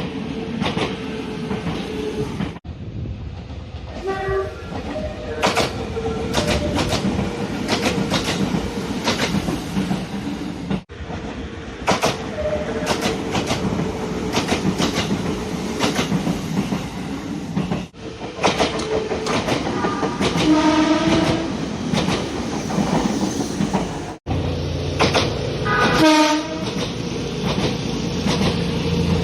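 Nagano Electric Railway express trains in a run of short recordings: horn blasts sound about four times over rapid wheel clicks on rail joints and a steady running tone. The sound breaks off abruptly several times where one recording gives way to the next.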